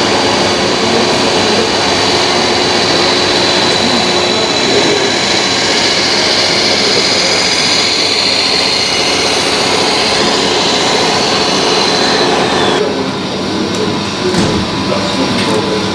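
Radio-controlled model machine running with a steady high electric motor whine over loud mechanical noise; about 13 seconds in the whine drops in pitch and the sound thins out.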